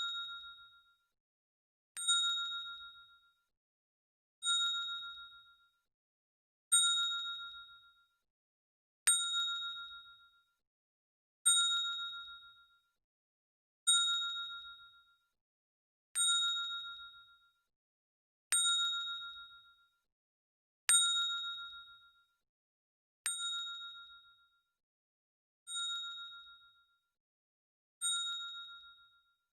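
Notification bell sound effect: a bright electronic "ding" repeating steadily about every two and a third seconds, each strike fading away over about a second.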